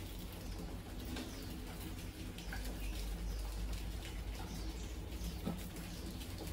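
Many wild rats squeaking in short, high, falling chirps, several a second, over a steady low hum.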